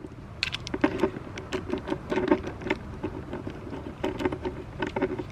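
Irregular small clicks and light metal knocks of hand tools working a car battery terminal clamp loose.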